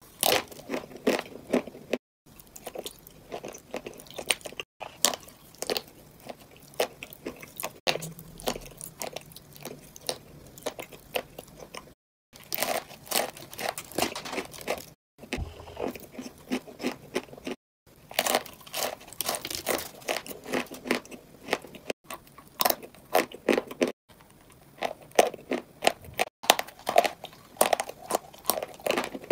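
Close-up crunching and chewing of hard, chalky, rock-like chunks: many sharp crunches in quick clusters. The sound breaks off abruptly several times, then picks up again.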